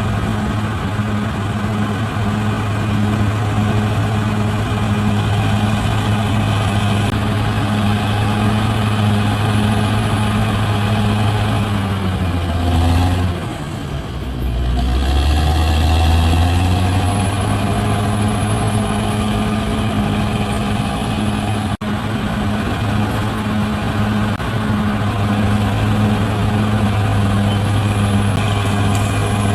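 Large bulldozer's diesel engine running steadily under load. About halfway through, the engine note drops for a couple of seconds and then climbs back up.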